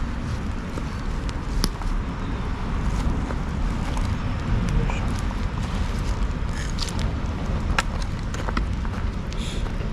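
Wood bonfire of dried logs and branches crackling, with scattered sharp pops that come more often in the second half, over a steady low rumble.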